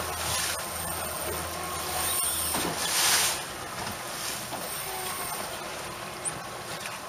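Outboard-powered fishing boat running at trolling speed: a low, steady engine hum under wind on the microphone and water rushing past the hull, with a few louder surges of rushing noise.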